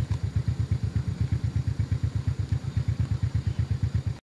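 Small engine idling nearby, a steady low chugging of about ten beats a second; it cuts off suddenly near the end.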